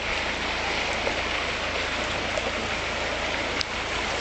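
Steady rushing noise of a fast-flowing, flood-swollen river in spate.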